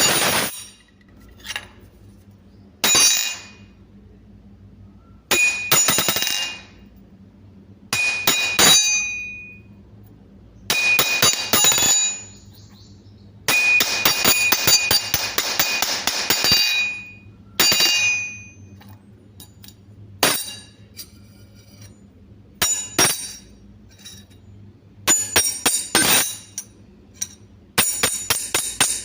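Metal spoons clinking and rattling in a dozen or so separate bursts, some ringing with a clear bright tone. About halfway through comes a longer run of rapid clinking lasting around three seconds.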